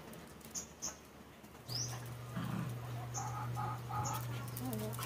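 Scattered short, high chirps of small birds, with a few faint puppy whimpers and squeaks in the second half, over a steady low hum.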